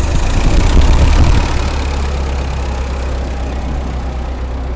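1923 Dodge Brothers touring car's four-cylinder engine just started, running louder for about the first second and a half and then settling to a steady idle.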